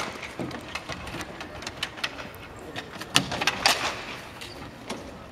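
Street hockey sticks clacking and knocking against the asphalt, each other and the plastic ball, in a string of sharp irregular knocks, with a louder cluster about three to four seconds in.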